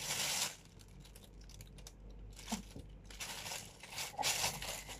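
Thin clear plastic packaging bag crinkling and rustling as it is handled, loudest in the first half second and again over the last two seconds.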